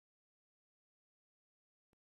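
Silence: an empty audio track, with only a faint click near the end.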